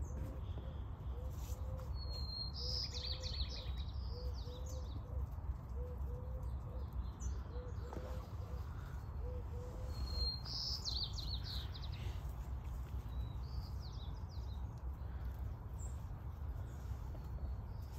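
Wild songbird singing short, bright phrases, once about three seconds in and again about eleven seconds in, with a fainter phrase soon after. A steady low rumble runs beneath, and a soft run of short low notes repeats through the first ten seconds.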